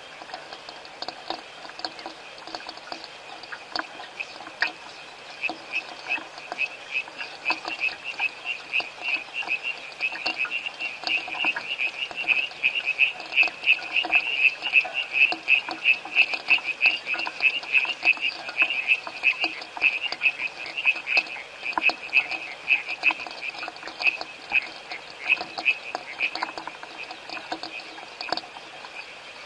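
Frogs calling: a rapid run of short, high, pulsed calls, about four a second, that swells to its loudest in the middle and fades near the end, over a fainter background of other calls.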